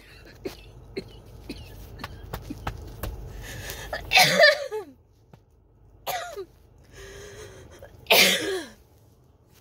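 A person in a coughing fit: three harsh coughs about four, six and eight seconds in, the first and last loudest, with a noisy breath drawn in between. Before them comes a run of small sharp clicks.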